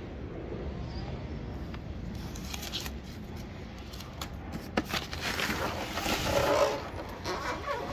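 Packing paper rustling and crinkling as a foam wing-foil board is handled in its wrapping, with scattered clicks and scrapes, loudest a little past the middle. A steady low rumble runs underneath.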